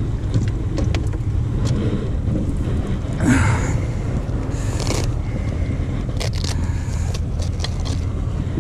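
Velcro strap on a neoprene spinning-reel cover ripped open: a rasp about three seconds in and a shorter one near five seconds, then light clicks as the reel is handled, over a steady low rumble.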